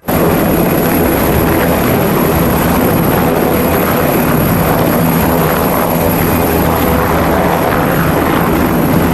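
Helicopter rotor and engine noise, loud and steady, starting abruptly, with a thin high whine running above it.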